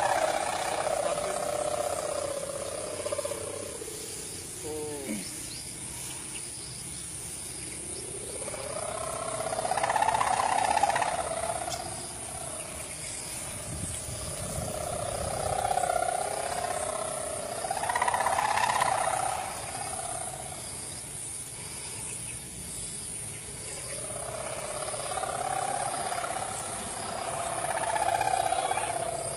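A sawangan kite hummer on a large kite, buzzing in the wind with a snoring drone. The drone swells and fades several times.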